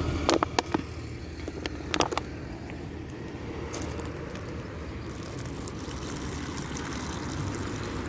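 A plastic water bottle being handled, giving a few sharp crinkles and clicks in the first two seconds, over a steady low rumble of distant traffic. Right at the end, water starts pouring from the bottle into a small plastic cup.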